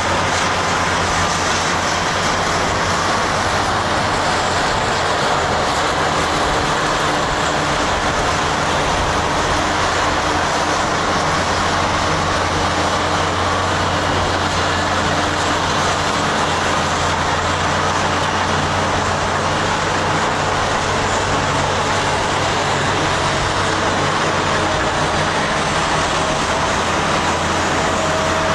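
Diesel engines of Cat 657 wheel tractor-scrapers running steadily, a loud, even drone with a low hum that holds the same level throughout.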